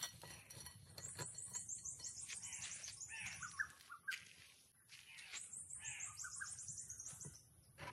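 Birds calling: a fast run of high, rapidly repeated chirps twice, with lower arching calls in between.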